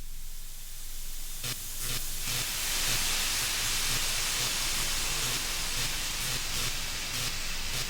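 A rushing hiss, like escaping air or steam, that swells up over about two seconds and then holds, with a few sharp clicks scattered through it.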